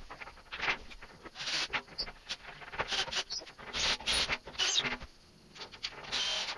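Irregular scratchy rustling and scraping in short bursts, like hands handling tools and small parts, with a brief pause about five seconds in.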